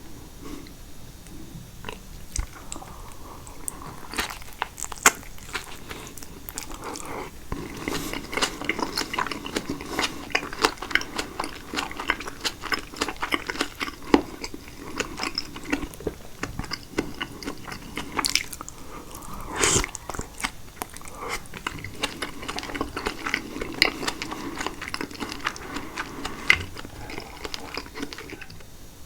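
Close-miked chewing of caprese salad, with wet mouth clicks and smacks as tomato and mozzarella are bitten and mashed, now and then a sharper, louder click.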